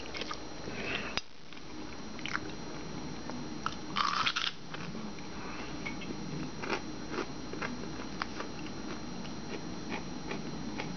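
Eating sounds: a crisp crunch about four seconds in as a raw radish is bitten, then chewing with many small clicks.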